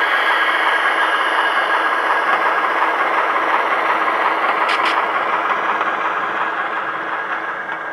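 Simulated diesel engine sound from a Tsunami 2 DCC sound decoder in a model Pennsylvania RS1 locomotive, playing through its small onboard speaker as the model pulls away at speed step 1. A steady turbocharger whine rides over the engine sound, which grows fainter near the end as the locomotive moves off.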